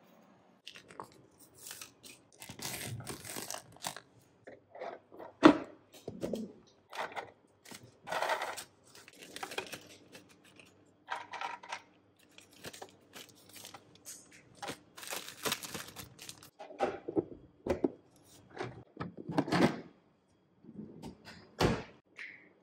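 Handling noises of packing snacks: a plastic zip-lock bag rustling and crinkling as pretzels are dropped into it, with irregular knocks of things set down on a wooden cutting board, the sharpest about five seconds in and another near the end.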